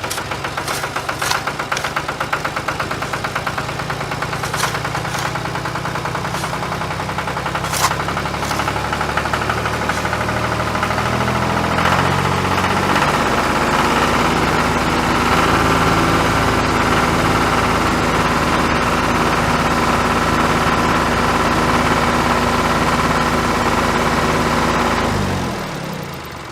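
An engine running steadily, its pitch shifting in small steps, with scattered rattling clicks in the first half. It stops about a second before the end.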